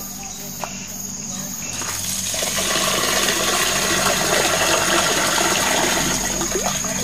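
Water from an outdoor standpipe pouring steadily into a metal pot, the flow starting about two seconds in. A thin, steady insect drone runs under it.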